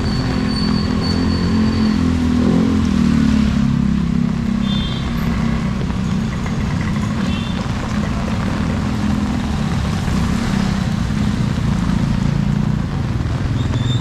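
Motor vehicle engine running steadily close by, its pitch holding level.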